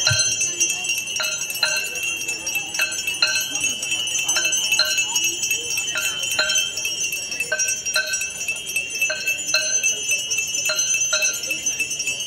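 Aarti bells ringing: a steady high jangle of hand bells, with a larger bell struck in an uneven rhythm about twice a second, each stroke ringing on briefly.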